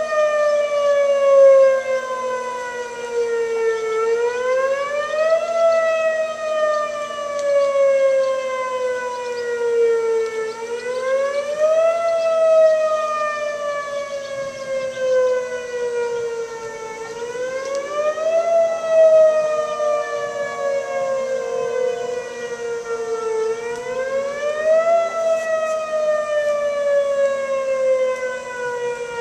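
Outdoor tornado warning siren sounding a warning, its wail sliding slowly down in pitch for about five seconds and then sweeping quickly back up, over and over.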